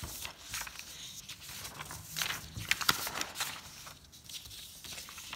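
Sheets of paper being handled and slid over one another on a desk: a series of short, irregular rustles and soft taps.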